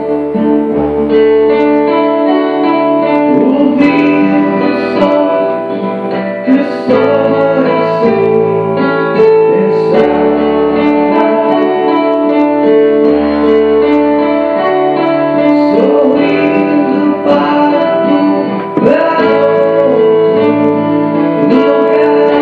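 A band playing: guitar over a pulsing bass line, with a singing voice coming in at several points.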